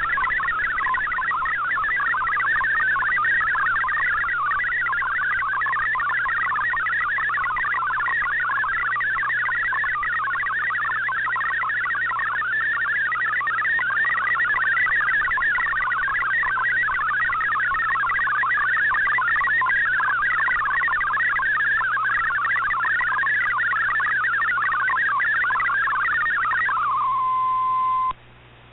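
MFSK64 digital text signal from a shortwave broadcast, received on an Icom IC-R8600: a fast, dense warble of tones hopping between about 1 and 2 kHz, over a faint low hum. About a second before the end it settles into a single steady tone as the message ends, then cuts out briefly.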